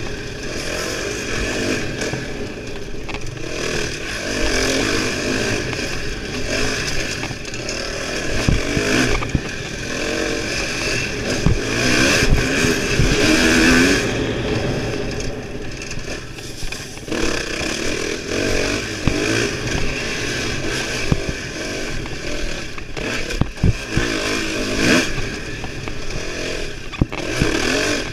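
Dirt bike engine revving up and down as it is ridden hard along a bumpy trail, loudest as it pulls hard about twelve seconds in, with scattered sharp knocks from the bike over bumps.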